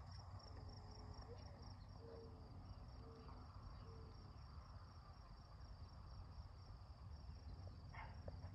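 Faint crickets chirping in a steady, high-pitched trill of quick, even pulses.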